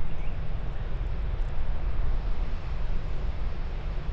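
Outdoor wind rumbling on the microphone. Over it runs a thin, high steady whine that breaks off after a second and a half and comes back as a fast string of pulses near the end, with a few faint short chirps.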